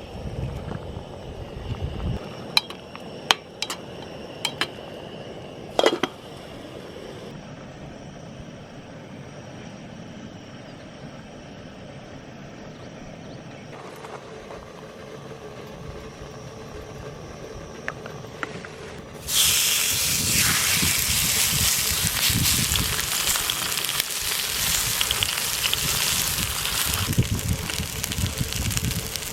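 A few sharp clinks of cookware, then food suddenly goes into a hot pan and sizzles loudly and steadily.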